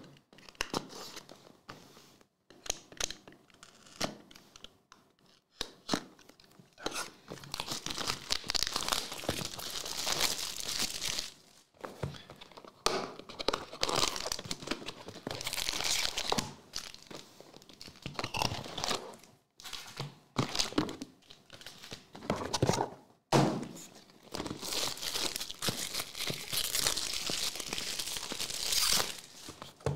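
Plastic shrink-wrap being torn and peeled off sealed trading-card boxes, crinkling in several long stretches, with short knocks as the cardboard boxes are handled.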